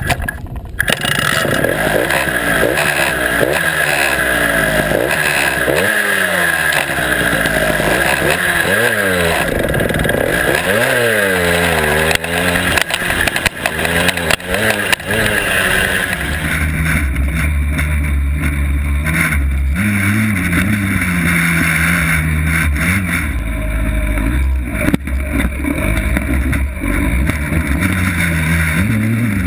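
Suzuki Minicross 49cc two-stroke engine, heard close to its exhaust, revving up and down again and again as the mini dirt bike is ridden over rough ground. About halfway through the revs drop and it runs lower and steadier, with small rises.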